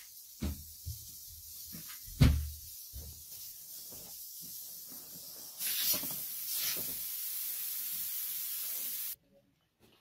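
Household handling noise: a few dull thumps of things being put down, the loudest about two seconds in, over a steady hiss. The hiss grows louder about halfway through and cuts off suddenly near the end.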